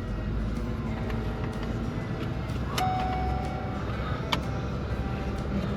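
An engine idling steadily with a low rumble, with two sharp clicks and a brief beep-like tone about halfway through.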